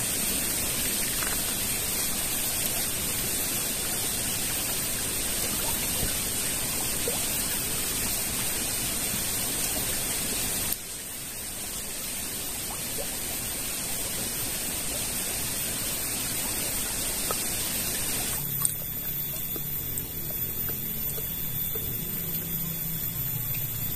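Small stream flowing: a steady rush of water that drops suddenly in level about eleven seconds in and changes again a few seconds later.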